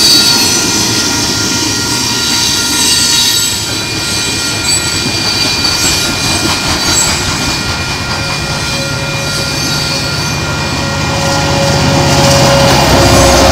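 Union Pacific freight train rolling past, its wheels clattering on the rails with a steady high squeal. A deeper hum builds over the last few seconds.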